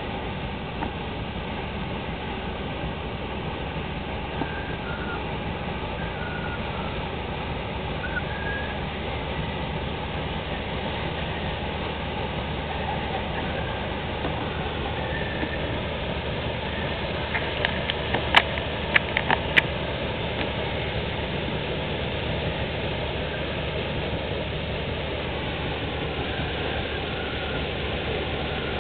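Steady rumbling noise of a paddle steamer passing close by, engine and paddle wheels churning the water. A quick run of four or five sharp clicks comes about two thirds of the way through.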